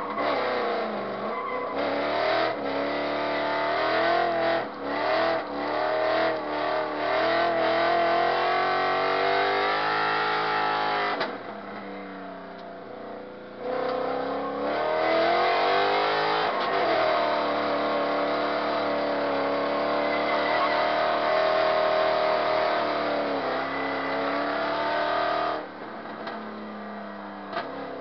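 Drift car's engine revving hard and falling back again and again, heard from inside the cabin, with tyre squeal as the car slides. The engine eases off about eleven seconds in and again near the end.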